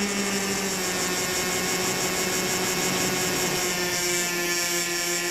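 Electric motor and propeller of a HobbyZone Firebird Stratos RC plane whining steadily in flight, picked up by the onboard keychain camera's microphone. The pitch dips slightly near the end.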